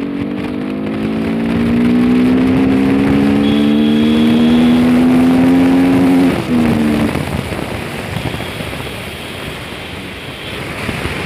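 Modified Bajaj Pulsar RS200 engine with a loud aftermarket exhaust, pulling hard in gear with its note climbing slowly in pitch. About six seconds in the note drops away, as if the throttle is rolled off, and a steady rushing noise takes over.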